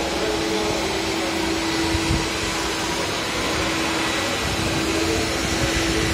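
Corded walk-behind scrubber dryer running on a hard floor: the steady whir of its suction and brush motors with a constant hum.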